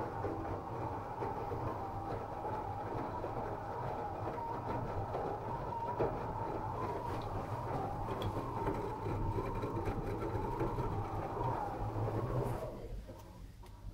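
LG WD-12360TDK direct-drive washing machine running, with a steady low rumble and a wavering whine, a strange noise that the owner suspects comes from the drum bearings. The sound dies away near the end.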